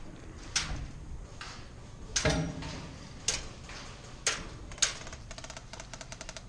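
Airsoft gun firing: single sharp shots about a second apart, with a heavier thump about two seconds in, then a quick burst of about a dozen shots near the end.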